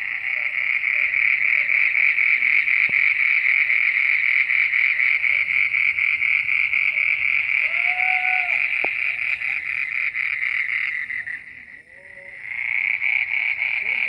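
Night chorus of calling animals: a loud, unbroken, fast-pulsing high trill that drops out for about a second near the end and then starts again.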